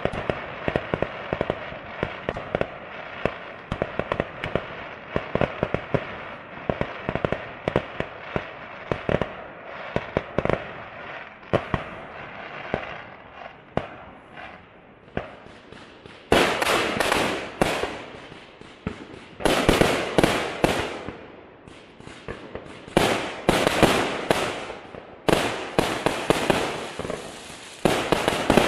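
Fireworks display with aerial shells bursting. Many sharp bangs come in quick succession at first. From about halfway, longer, louder rushing sounds take over, each lasting a second or two.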